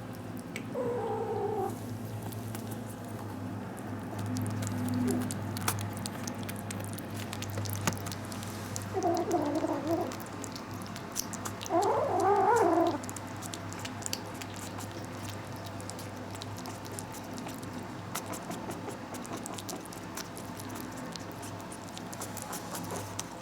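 Cats at a dish of canned food: one cat calls three times, a short falling call about a second in and two calls in the middle, the last the loudest, over faint ticking eating sounds. A steady low hum runs underneath.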